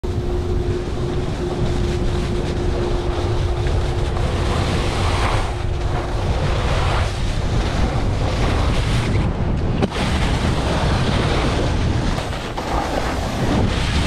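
Wind buffeting an action-camera microphone on a snowboard run, over the steady hiss and scrape of the board sliding across packed snow. A faint steady tone runs through the first half.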